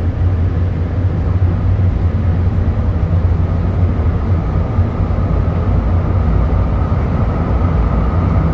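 Inside a moving Calgary CTrain light-rail car: a steady low rumble of wheels on rail and running gear, with a faint high whine coming in about halfway through.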